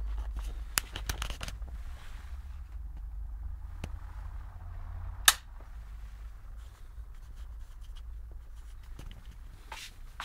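Steady low hum with a few light handling clicks, and one sharp loud click about five seconds in, after which the hum drops a little.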